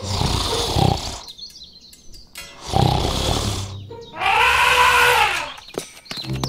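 Elephant sound effects: two short rough roars, then, a little past four seconds in, a long trumpet call that rises and falls in pitch.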